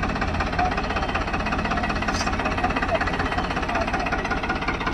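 Farmtrac 60 tractor's diesel engine running steadily at low speed, with an even, rapid beat.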